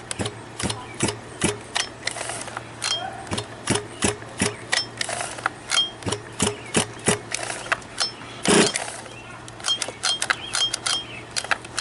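Irregular run of sharp clicks and knocks, two or three a second, with a louder rasp about eight and a half seconds in, as the Losi 5ive B's OBR 34cc two-stroke engine is cranked with its pull starter and fails to fire.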